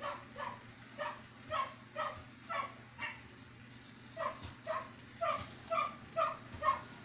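A dog barking repeatedly, about two short barks a second, with a pause of about a second near the middle.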